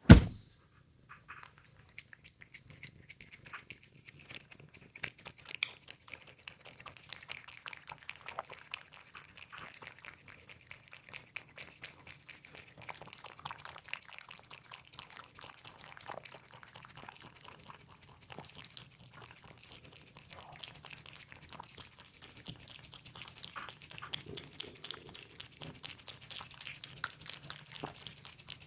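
A cat eating, its mouth making a steady run of small smacking and chewing clicks. A single loud knock right at the start.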